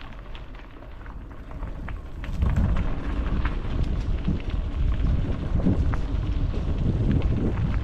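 Wind buffeting the microphone with a low rumble and scattered clicks and rattles from riding over a trail, getting louder about two and a half seconds in.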